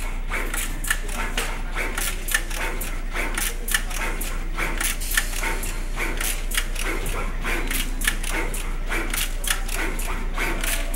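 SMT pick-and-place machine running, its tape-reel feeders and placement head making rapid, uneven clicking, several clicks a second, over a steady low hum.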